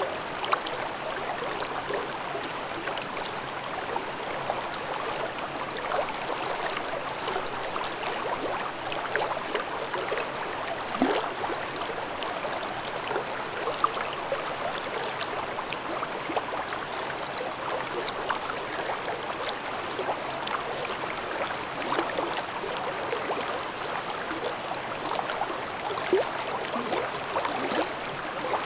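Shallow mountain stream babbling over rocks: a steady rush of flowing water with many small splashes and gurgles.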